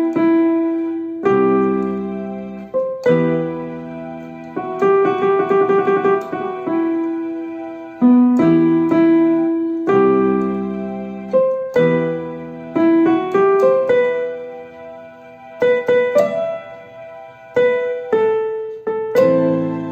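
Electronic keyboard playing a slow melody in E minor over sustained left-hand chords, with notes and chords struck every second or two. There is a quick run of notes about five seconds in.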